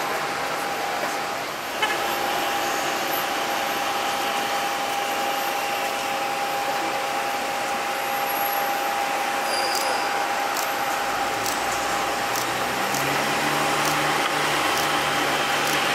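The four CFM56 engines of an Airbus A340-300 at takeoff power on a wet runway: a steady rush of jet noise with a high whine held on one note, growing slowly louder as the aircraft rolls and lifts off. Lower engine tones join in over the last few seconds, and there is a brief click about two seconds in.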